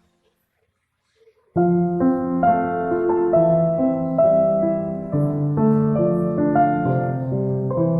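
Background music: after a second and a half of silence, a piano melody starts and plays on at an even pace.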